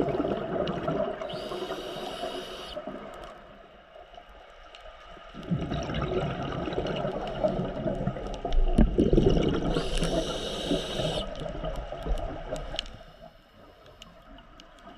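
Scuba diver breathing through a regulator underwater. Two inhalations with a high hiss about a second and a half long, one just after the start and one about ten seconds in, each set among long gurgling rumbles of exhaled bubbles.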